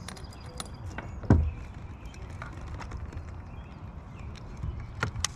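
Handling a fish and a fish scale in a kayak: one loud low thump about a second in, with scattered small clicks and taps and a few more knocks near the end.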